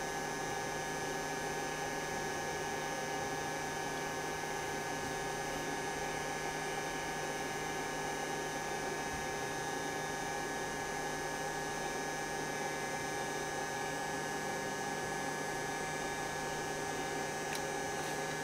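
A steady hum made of several held tones over a faint hiss, unchanging in level.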